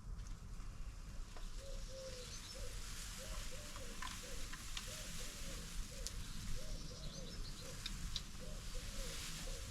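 A pigeon cooing in a repeated phrase of short low coos, with a few higher bird chirps over a steady background hiss.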